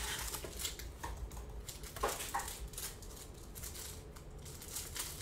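Clear plastic trading-card pack wrapper crinkling and crackling as it is torn open and pulled off the cards by hand. A couple of short squeaky chirps sound about two seconds in.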